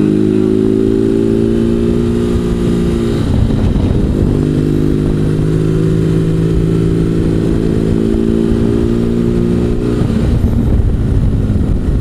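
BMW R1200GS boxer-twin engine running under way at road speed, with wind rumbling on the microphone. The engine note breaks and comes back at a new pitch twice, about three seconds in and about ten seconds in.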